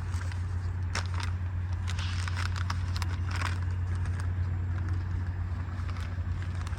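Steady low engine hum with scattered light crackles and clicks.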